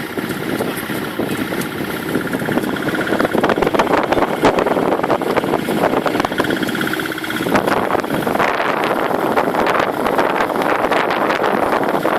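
Wind buffeting the microphone aboard a sailing yacht: a steady, loud rushing with crackles.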